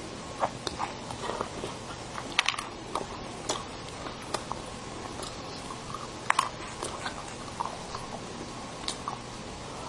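Close-miked mouth sounds of a person eating mousse cake: soft chewing with scattered sharp, irregular wet clicks and smacks, over a faint steady hum.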